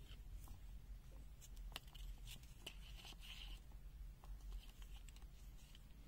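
Faint rustling and light scattered clicks of multimeter test leads, with PVC-insulated cables and plastic probes, being handled in the hands over a steady low hum. A slightly longer rustle comes about three seconds in.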